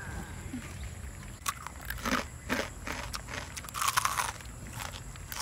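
A person biting into and chewing a crispy fried chicken wing: a series of crunches, the loudest about four seconds in.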